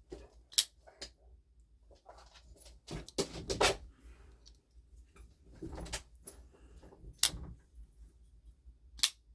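Folding knives being handled: a few sharp metallic clicks, a couple of which stand out near the end, and rougher knocks and rustles of the knives being picked up and set down.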